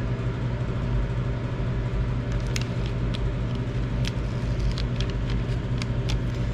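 Steady low hum of a running machine or motor. A few faint, light ticks come through it as a pick picks cut vinyl letters off their backing sheet.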